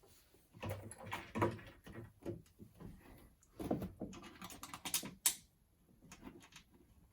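Irregular clicking, knocking and clattering from handling a desktop PC case and its side panel screws, with a few dull thumps and a couple of sharp clicks about five seconds in.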